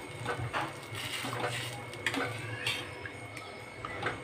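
Steel spoon stirring thick cooked dal in a metal saucepan: wet stirring with several sharp clinks and scrapes of the spoon against the pan.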